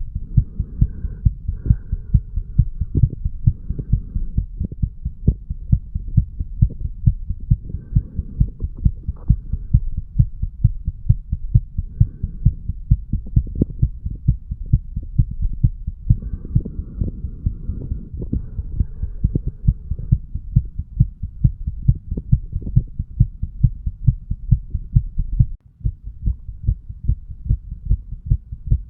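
A man's heartbeat picked up at the mitral valve area of the chest: a steady, even run of low thumping beats. The sound drops out briefly near the end.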